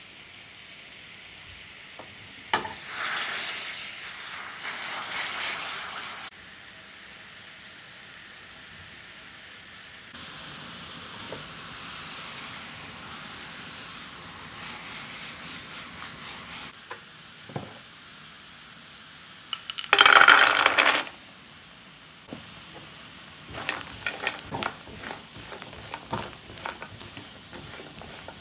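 Sugar syrup boiling and bubbling in a frying pan over a gas flame. About 20 s in there is a loud rattling burst as almonds and macadamia nuts go into the hot syrup. After that a spatula stirs them, with sizzling and light clicks of nuts against the pan.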